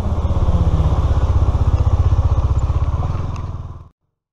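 Motorcycle engine running while riding, heard close up from the rider's seat, with a fast, even pulsing beat and a slight fall in pitch early on. It cuts off abruptly shortly before the end.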